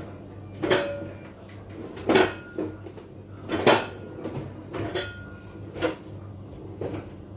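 Kitchenware clattering: about seven separate clinks and knocks of dishes, pots and utensils being handled, some ringing briefly, over a steady low hum.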